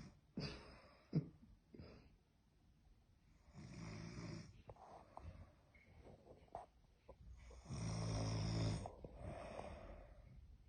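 A person snoring in deep sleep, one rasping snore every few seconds, the longest and strongest about eight seconds in. A brief sharp sound about a second in is the loudest moment.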